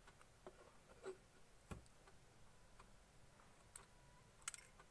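A few faint clicks and light taps of a metal compass being handled and lifted out of a plastic geometry-box tray, with one duller knock a little before the middle and a sharper click near the end.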